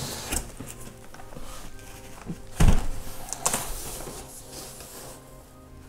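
Cardboard packaging being handled, with scattered rustles and light knocks and one louder thump about two and a half seconds in.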